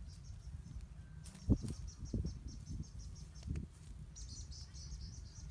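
Insects chirping in a fast, even pulsing trill, with a few dull thumps, the loudest about one and a half seconds in.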